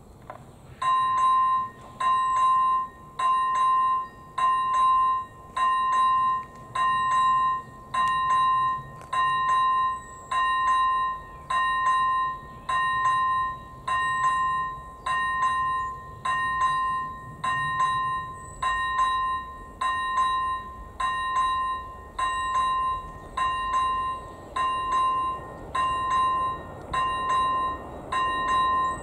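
Level-crossing warning bell (AŽD ZV01 electronic bell) starting about a second in and ringing a clear pitched tone about once a second: the crossing has been activated for an approaching train.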